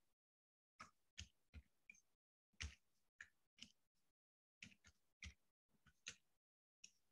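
Faint computer keyboard keystrokes: quick runs of clicks in small clusters as words are typed, with dead silence between the clusters.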